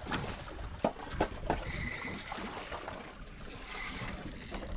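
Wind and water noise around a boat at sea, with three sharp clicks about a second in.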